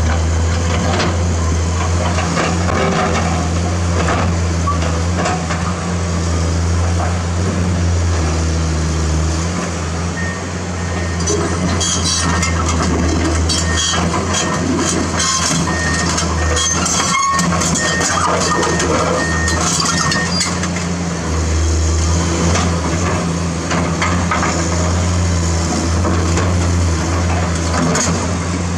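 Komatsu PC210-10 excavator's diesel engine running steadily. From about ten seconds in, for about ten seconds, the machine travels: its steel tracks clank and rattle, and an alarm beeps about twice a second.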